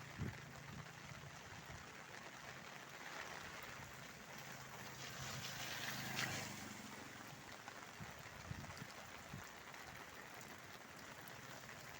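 Steady hiss of rain mixed with running river water; a louder rush swells and fades about six seconds in.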